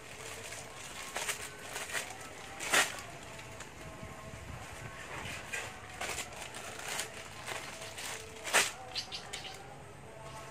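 Clear plastic bag of mushroom spawn being handled: rustling and crinkling plastic with sharp crackles, the two loudest about three seconds in and about eight and a half seconds in. Faint bird calls in the background.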